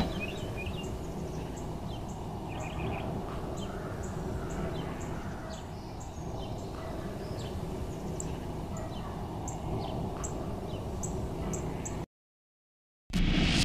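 Outdoor field ambience: scattered short, high bird chirps over a low, steady background rumble. It cuts out to silence for about a second near the end.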